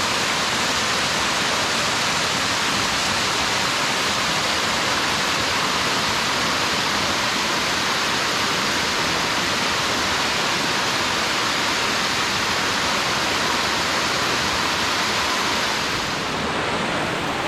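Rushing water, a steady, even flow.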